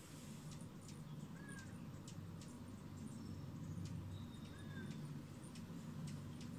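Hummingbirds at a nectar feeder: a low steady hum, with a short rising-and-falling chirp every two or three seconds and faint scattered ticks.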